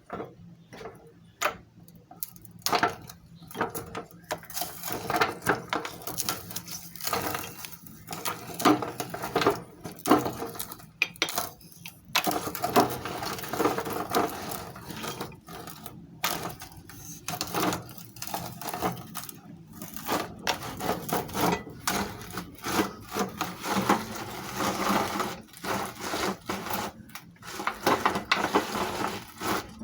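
Meat grinder grinding ice cream: irregular scraping and rubbing with frequent sharp clicks and knocks.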